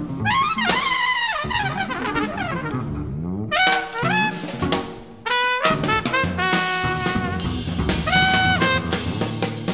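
Jazz trumpet improvising over bass and drum kit, with sliding, bent notes at first and longer held notes in the second half.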